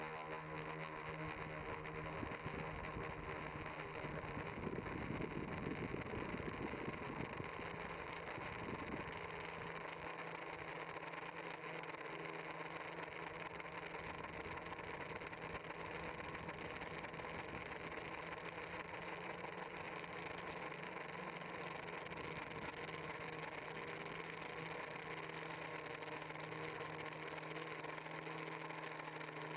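Multicopter's electric motors and propellers humming steadily, heard from the camera on board. A stretch of louder low rumble comes between about four and nine seconds in.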